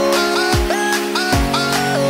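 Electronic music with a deep thump about every 0.8 seconds and short sliding notes over held tones.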